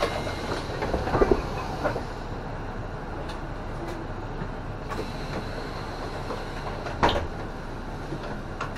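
Steady engine and cabin noise inside a Toei city bus idling at a stop, with a few light knocks about a second in and one sharp knock about seven seconds in.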